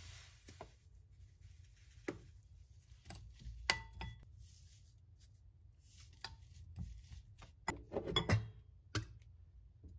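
Metal spoon clinking and scraping against a ceramic bowl as sugar is spooned and shaken from a paper bag into a dry mix of chili flakes and chopped green onion. The loudest is one ringing clink a little under four seconds in, with a quick cluster of knocks near the end.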